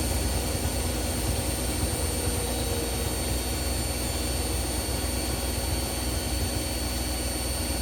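Two Hoover washing machines, an H-Wash 300 and a Dynamic Next Daily, spinning at high speed on their final spin. Their drums and motors make a steady loud whir over a low rumble, with faint high steady whines.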